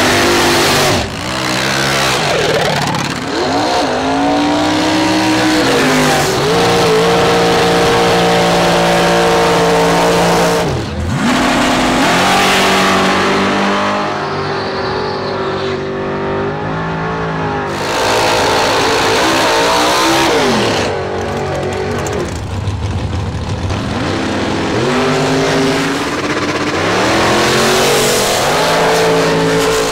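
Drag-racing engines, including supercharged dragster V8s and a V8 street car, revving hard and accelerating away in a string of separate runs. Each run rises in pitch, holds, then falls away.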